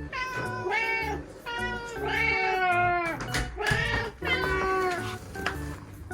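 Domestic cats meowing over and over, about six drawn-out rising-and-falling meows one after another, the insistent food-demanding calls of cats waiting to be fed.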